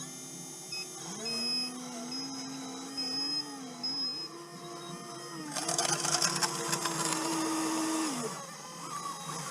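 Small electric motor of an RC model whining under varying throttle, its pitch rising and falling in steps, with a loud rustling, gritty noise over its last few seconds before it stops.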